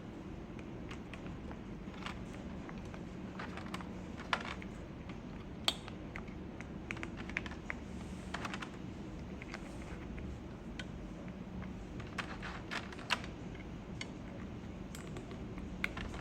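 Irregular, scattered clacks and taps from a QK80 MK2 mechanical keyboard with Tori switches and Candy Box keycaps as keys are handled and pressed, over a steady low hum.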